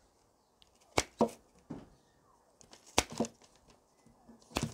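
Freshly sharpened and tension-adjusted cheap secateurs cutting through a thin pruning stick. The blades close through the wood in a few sharp snips, one about every one and a half to two seconds, some followed closely by a second click.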